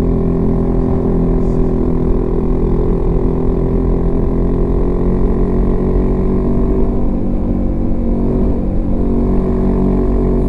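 Honda CB150X's single-cylinder engine running at a steady pitch while the motorcycle is ridden along, with a constant low rumble underneath.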